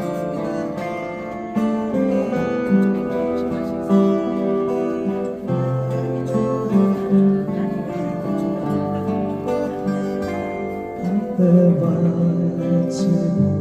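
Acoustic guitar playing a slow instrumental introduction to a ballad, with strummed chords and sustained notes.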